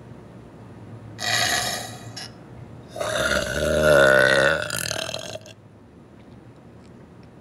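A woman burping: a short, rough burst about a second in, then one long burp from about three seconds in that wavers in pitch and lasts about two seconds. The long burp is the loudest sound.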